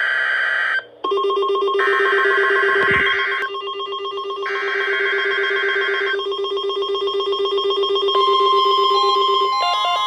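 NOAA Weather Radio warning alarm test: a steady tone near 1 kHz from the broadcast, played through the receivers' speakers, with the receivers' own alert beeps pulsing over it in bursts. The sound drops out briefly about a second in.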